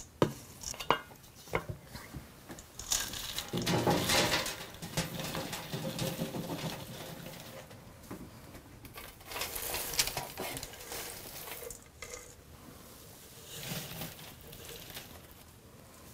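Wooden spoon stirring granola in a stainless steel mixing bowl, with a few sharp knocks of the spoon on the bowl in the first couple of seconds, then the loose oats and seeds rustling and scraping as they are spooned out onto a parchment-lined baking sheet.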